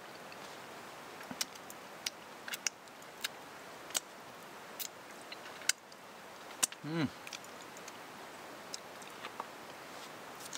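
A person chewing and eating steak by hand, with scattered small clicks and smacks, and a short hum of the voice about seven seconds in.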